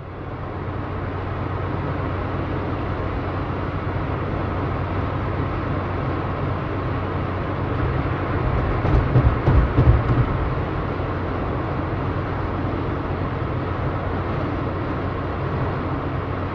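Steady low rumble of street traffic, swelling for about two seconds near the middle as something passes close.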